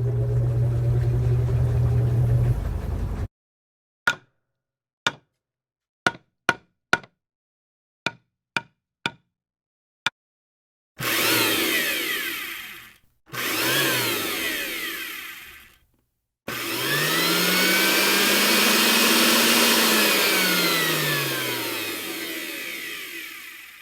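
A run of separate edited sound effects: a noisy sound with a low hum that cuts off about three seconds in, then about ten sharp clicks or knocks spread over six seconds, then three whooshing bursts of noise with gliding tones. The last burst is the longest, about seven seconds, with a tone that rises and then falls.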